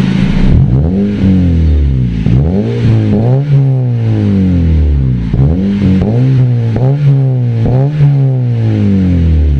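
Honda Civic FD's four-cylinder engine blipped again and again through an axle-back exhaust with the resonator deleted and a burnt-tip muffler, the exhaust note rising and falling in pitch with each rev.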